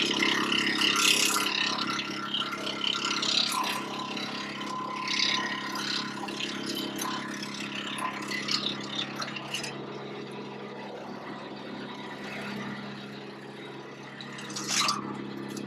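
Woodland Mills WC88 wood chipper's gas engine running steadily while branches are fed through, with irregular crackling and clattering as the wood is chipped. The chipping is loudest in the first couple of seconds, with a sharp burst near the end.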